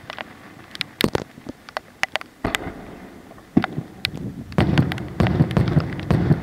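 Aerial fireworks shells bursting, with scattered sharp cracks and bangs. From about halfway through they thicken into a louder, denser rumble of rapid reports.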